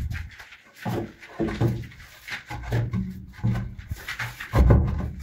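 Heavy stone slabs being shifted and stood on edge: irregular knocks and scrapes of stone against stone and brick, with a heavy thump shortly before the end.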